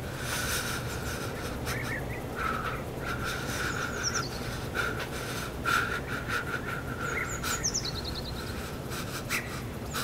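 Birds chirping over a steady low hum: a few short chirps about four seconds in and a quick falling run of chirps near the end.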